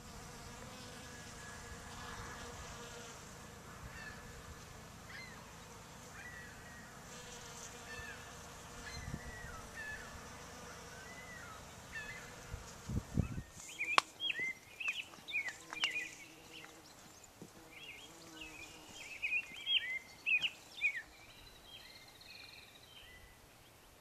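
Bees buzzing steadily around apple blossoms, with a few faint bird chirps over the hum. About halfway through the buzzing cuts off abruptly and a songbird sings in short bright chirping phrases.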